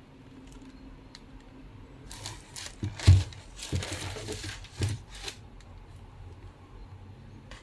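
Packaging being handled by hand during an unboxing: about two seconds in, a run of rustling and light knocks lasts about three seconds, the loudest a knock just after three seconds.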